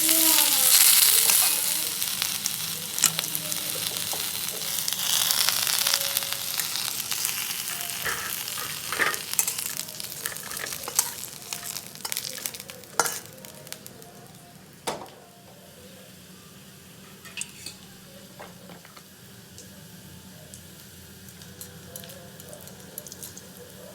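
Food sizzling as it fries in a pan, stirred with a spatula that clicks and scrapes against the pan now and then. The sizzle is loud at first and dies down to a faint hiss past the middle.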